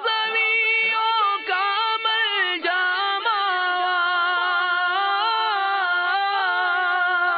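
Unaccompanied vocal singing of an Urdu manqabat, with no instruments: a held low note runs underneath while a voice moves through a flowing melody above it.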